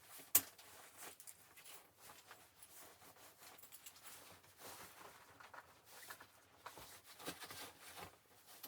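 Quiet rustling and small handling clicks, with one sharp click just after the start.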